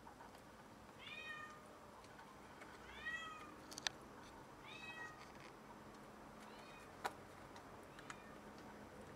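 Cat with a freshly caught rat, mewing: three short mews that rise and fall in pitch, about two seconds apart, and a fainter one near the end. Two sharp clicks fall between them.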